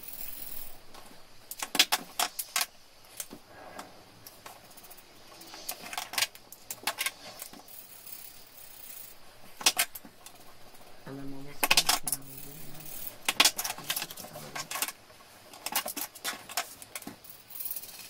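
Hard plastic clicks and clatter of alcohol markers being handled: caps pulled off and snapped back on and pens set down against the others on the cutting mat, in irregular bursts.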